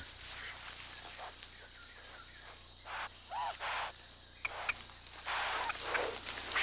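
Insects shrilling in a steady high drone, with scattered short rustling bursts that thicken near the end, and one brief call about three and a half seconds in.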